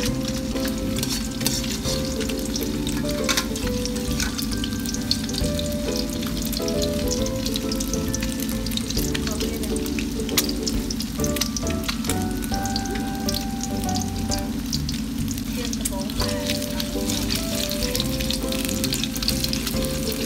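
An egg frying in hot oil in a steel wok, sizzling with many small crackles and pops throughout, over background music.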